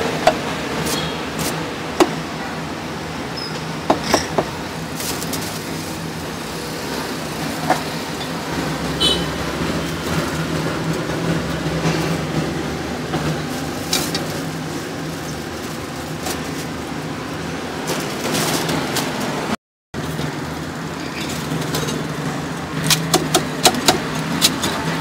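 A heavy cleaver chopping meat on a wooden chopping block: scattered single sharp knocks, then a quick run of chops near the end, over steady street noise.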